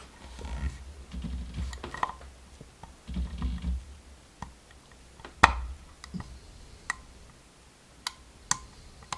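Dimple lock pick working the pins of a Mul-T-Lock Integrator cylinder under tension: scattered sharp metallic clicks and ticks, the loudest about halfway through. There is low rumbling handling noise in the first few seconds.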